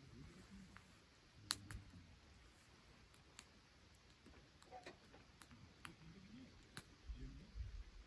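Faint crackling of a wood campfire in a fire pit: scattered single sharp pops and snaps a second or so apart, with a low rustle near the end.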